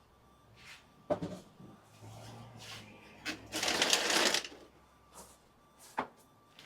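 Items being handled while unboxing: a knock about a second in, a second or so of packaging rustling, the loudest part, and a sharp click near the end.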